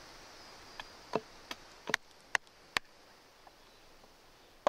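Wood being cut with a blade: six sharp chopping knocks, roughly two a second, in the first half, then a lull with one more knock at the very end.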